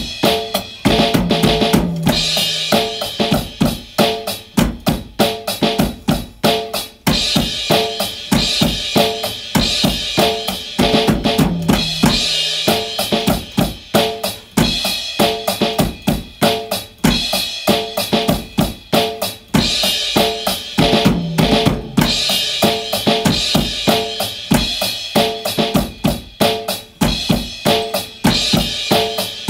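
A drum kit played with sticks in a busy, steady rock beat: bass drum and snare hits under constant cymbal wash, with the pattern repeating every few seconds.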